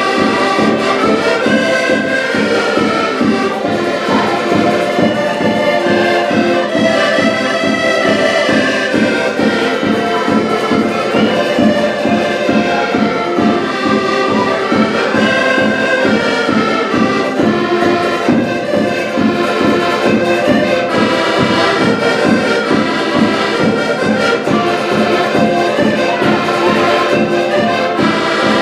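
An ensemble of diatonic button accordions (concertinas) playing a dance tune together, with sustained reedy chords over a steady rhythmic bass pulse.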